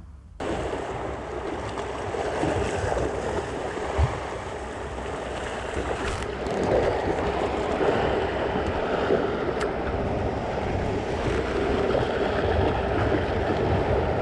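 Choppy sea waves washing steadily, with wind buffeting the microphone; the sound starts abruptly after a brief gap.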